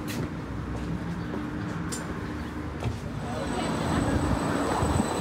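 Würzburg tram running on its rails, with a few sharp clicks from the track, then its motor whine rising in pitch and level from about three seconds in as it speeds up.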